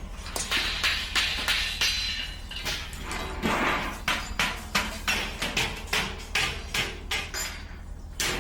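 Metal being struck over and over: sharp knocks and clanks, a few a second, with a short rushing noise about three and a half seconds in.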